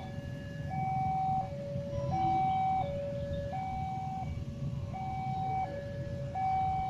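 Railway level-crossing warning alarm sounding a two-tone chime, a higher and a lower note alternating about every three-quarters of a second: the signal that a train is approaching. Under it runs a low steady rumble.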